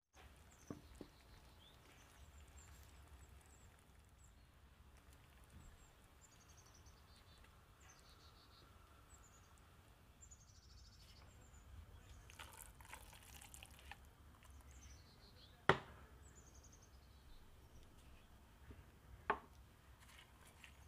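Very quiet room tone with faint high chirping, short falling trills that come back every second or two, like small birds singing in the distance. Two sharp clicks stand out, about three quarters of the way through and again near the end.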